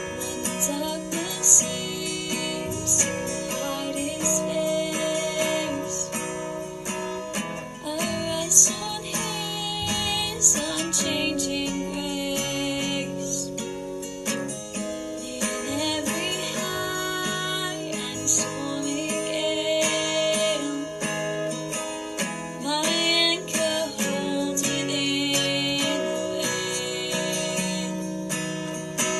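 Acoustic guitar strumming steady chords, accompanying a worship song.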